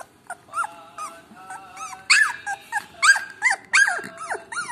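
Yellow Labrador puppy giving a run of short, high-pitched yips and whines, each rising and falling in pitch, getting louder about two seconds in.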